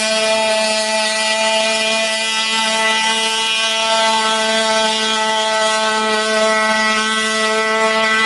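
Boston Dynamics WildCat quadruped robot's onboard combustion engine running loud and steady while the robot gallops, a buzzing drone that holds one unchanging pitch.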